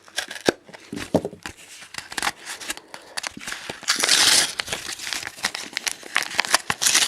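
Stiff plastic blister packaging crackling and crinkling as it is pulled open, a dense run of small clicks and crackles that grows loudest about four seconds in.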